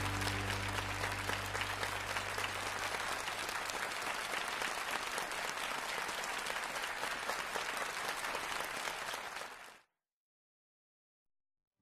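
Audience applauding, with the band's last low note dying away under it over the first few seconds. The applause fades out quickly just under ten seconds in, leaving silence.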